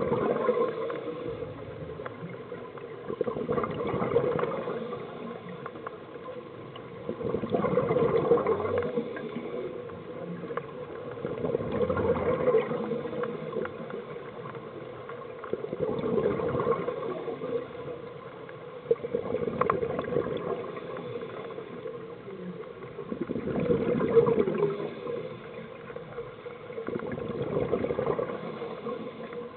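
Scuba diver's exhaled bubbles gurgling from the regulator, in swells about every four seconds with quieter stretches of breathing in between, heard underwater.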